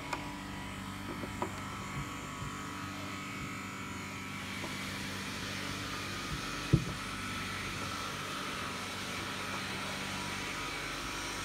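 Steady mechanical hum, with a few light clicks of a hand screwdriver turning screws into a small metal catch on a wooden drawer, and one sharper click about seven seconds in.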